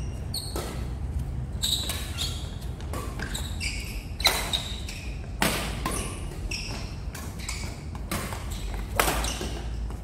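Doubles badminton rally: rackets sharply striking the shuttlecock again and again, the loudest hits about four, five and a half and nine seconds in, with shoes squeaking and shuffling on the court floor, echoing in a large hall.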